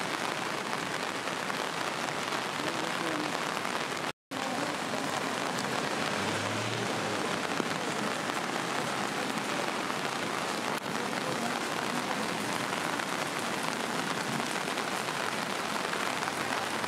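Steady heavy rain falling on wet ground, an even dense hiss that cuts out for a moment about four seconds in.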